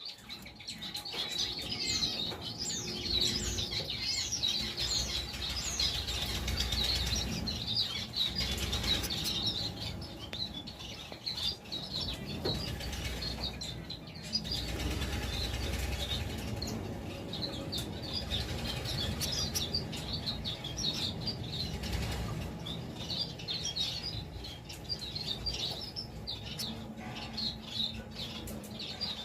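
Small caged finches twittering without a break, many quick high chirps overlapping, with wings fluttering in the cage.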